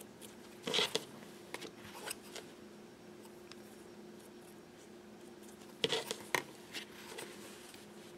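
Felt-tip marker scratching short lines on quilted fabric along a clear acrylic quilting ruler, with the ruler shifted on the cutting mat: two clusters of quick scratchy strokes about five seconds apart, with a few lighter ticks between, over a faint steady hum.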